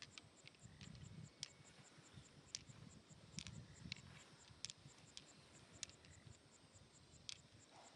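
Near silence, with a faint, even insect chirping at about four pulses a second and scattered light clicks.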